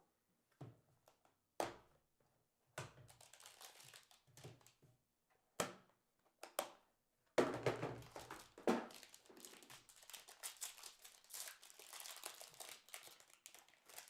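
A few sharp taps and clicks, then from about seven seconds in a long stretch of crinkling and tearing as a plastic wrapper on trading-card packs is ripped open and crumpled.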